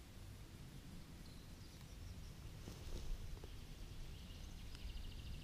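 Faint outdoor ambience: small birds chirping and trilling in short phrases over a low steady rumble of wind, with a few soft rustles and snaps of spruce twigs about halfway through as the young shoots are picked.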